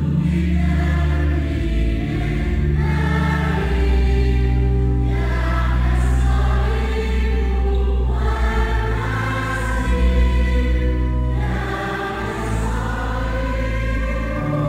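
Choir singing a hymn in long-held notes, with sustained low organ notes beneath.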